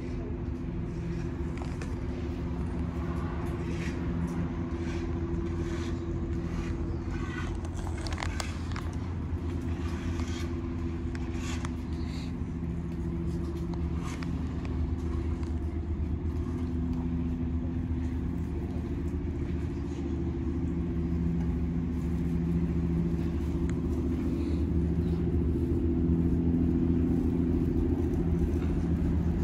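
Motor vehicle engine running steadily close by, a low even hum that grows a little louder in the last third, with scattered short clicks and knocks in the first half.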